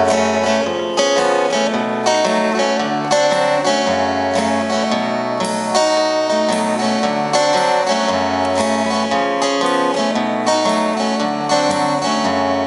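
Instrumental introduction of a live indie pop song: acoustic guitar strumming chords with a bass line underneath, the chords changing about once a second.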